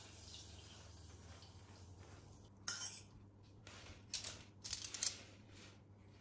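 Silicone pastry brush dabbing melted butter onto a hot, freshly baked stollen, with a sharp clink about two and a half seconds in and a quick run of clinks and taps between four and five seconds in.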